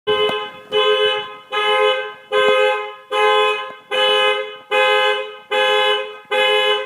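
Car alarm honking a two-note car horn in a steady beat of short blasts, a little over one a second. It starts abruptly.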